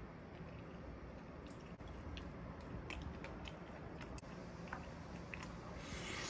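Quiet chewing of a mustard-dipped cocktail sausage, with a few faint clicks and a brief rustle near the end.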